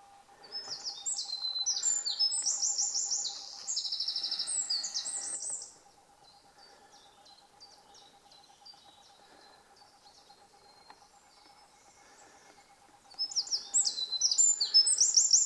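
A small songbird singing a long, fast song of high notes and rapid trills, lasting about five seconds. After a quiet stretch, a second song starts near the end.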